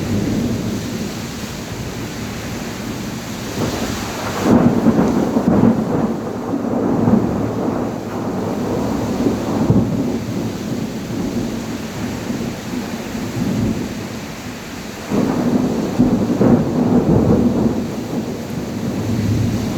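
Heavy rain falling steadily, with two loud low rumbling swells that rise suddenly, about four and fifteen seconds in, and fade over a few seconds.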